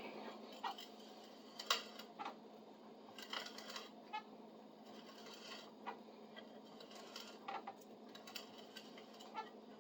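Faint, scattered light clicks and knocks of wood and a hand tool being handled, over a low steady hum.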